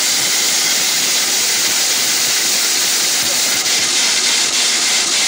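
Havells mixer grinder running at full speed: a steady, loud whir of motor and blades dry-grinding powder in its steel jar.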